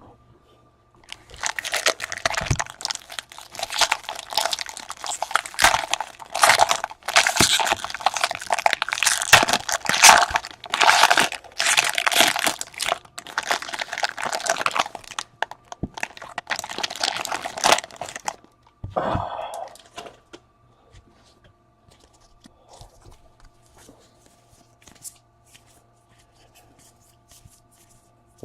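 Plastic baseball-card pack wrappers being torn open and crumpled: a dense stretch of crinkling and tearing lasting about seventeen seconds, followed by a few faint light ticks.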